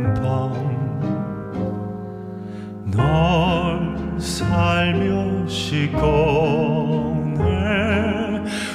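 A classical-style male bass voice singing a slow song live with an instrumental backing, in sustained notes with wide vibrato. A louder phrase begins about three seconds in.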